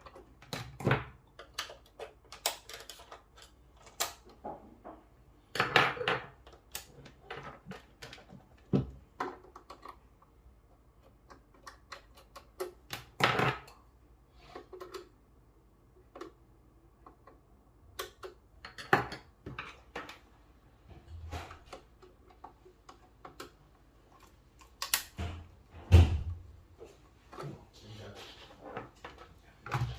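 Irregular clicks, taps and knocks of tools and plastic parts being handled while a central heating programmer is worked on to bypass it, with a few louder knocks scattered through.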